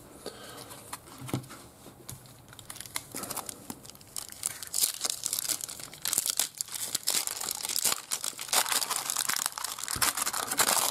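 A trading card pack's wrapper being torn open and crinkled. A few light clicks come first, then from about four seconds in a dense, crisp crackle.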